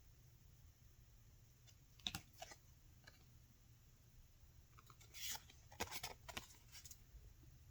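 Faint paper rustles and crinkles with light clicks from the pages and paper inserts of a hardbound portfolio being handled, in two short spells: a brief one about two seconds in and a busier one from about five to seven seconds.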